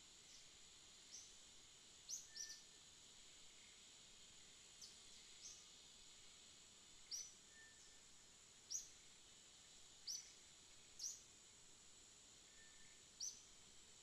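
Faint outdoor ambience: a steady high-pitched insect drone, with about ten short, high chirps scattered through it.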